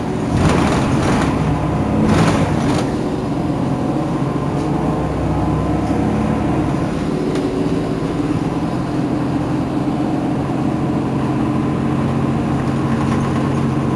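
Irisbus Citelis Line Euro 5 city bus's diesel engine idling steadily at standstill. Two short hisses come in the first three seconds.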